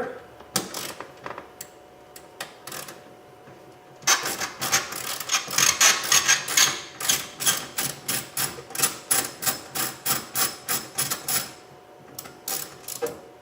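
Ratchet clicking as a 10 mm socket backs out the bolt holding the interior door handle: a few scattered clicks, then from about four seconds in a fast, even run of clicks, several a second, thinning to a few loose clicks near the end.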